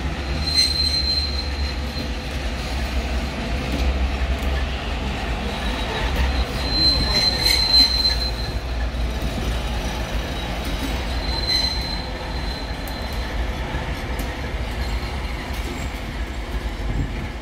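Heavy 'Ludmilla'-type diesel locomotive moving slowly over yard tracks, its engine giving a deep steady rumble. Three high squeals from the wheels come near the start, around the middle and about two-thirds in.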